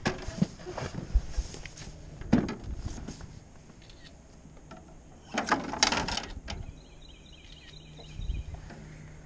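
Scattered knocks and rustles of handling a caught fish and rod in a small aluminium boat, with a louder burst of rustling a little past halfway. A short, fast-repeating high chirping follows near the end.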